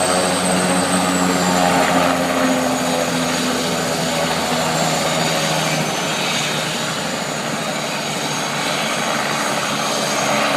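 Helicopter running steadily, with a thin high whine that drifts slightly lower.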